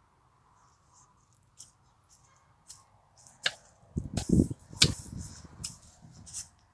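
Hand hoe chopping and scraping into loose garden soil and weeds: irregular crunching strikes, sparse at first and busiest about four to five seconds in, with a few heavier thuds.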